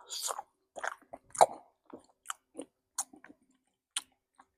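Close-miked chewing and mouth sounds into a microphone for ASMR: a string of irregular short clicks.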